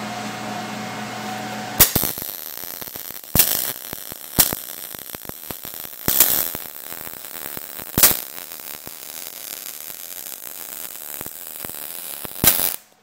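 MIG welding arc (.030 ER70S-6 wire, C-25 shielding gas) running a bead on galvanized sheet steel: a steady crackle broken by several sharp pops, starting about two seconds in after a steady hum and cutting off suddenly near the end. The zinc coating burns off under the arc.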